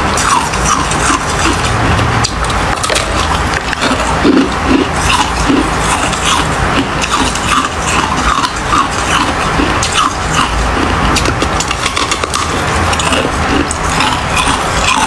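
Ice being chewed: a dense, continuous run of crisp crunches and cracks.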